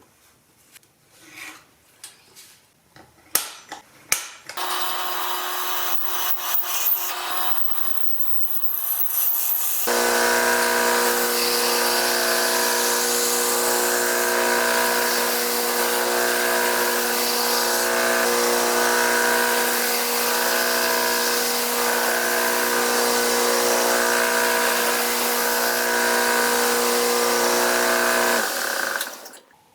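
A few knocks and handling clicks, then an electric power tool runs on the steel of a saw blade: a lighter run from about four seconds in, then a louder steady run from about ten seconds with a regular swell about once a second, stopping shortly before the end.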